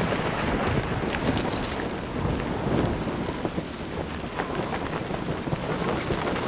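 Steady rain falling, with many single drops ticking sharply through it and a low rumble that is loudest at the start.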